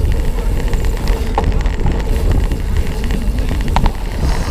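Wind buffeting a bike-mounted camera's microphone over the low rumble and rattle of a cyclocross bike riding across grass, with two brief pings.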